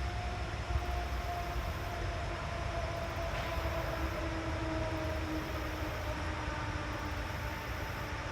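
Distant vehicle passing: a steady low rumble with a faint droning tone that slowly drops in pitch.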